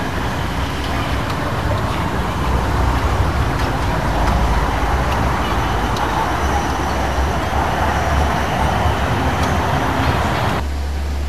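Steady city street traffic noise with a low rumble: vehicles passing on a wet road. It drops away abruptly near the end.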